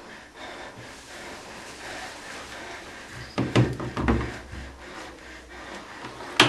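Rubbing and knocking of objects being handled, with a few louder knocks about three and a half to four seconds in and a sharp click near the end.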